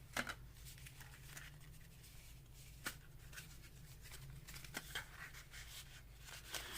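Faint rustling and a few light clicks and taps of paper craft supplies being sorted through by hand, over a low steady room hum.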